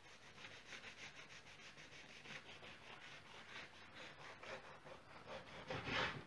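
Long knife sawing through a cozonac, a Romanian sweet bread loaf with walnut filling, on a wooden board: faint, rapid back-and-forth scraping strokes through crust and crumb, with a louder stroke near the end as the cut finishes.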